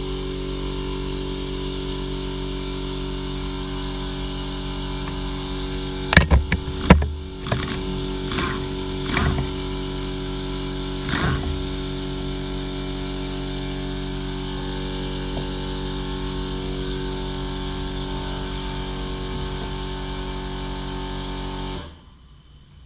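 Impact wrench hammering steadily on the Allen bolt at the bottom of a motorcycle fork leg, working it loose, then cutting off abruptly near the end. A few loud clanks and knocks come about a third of the way in.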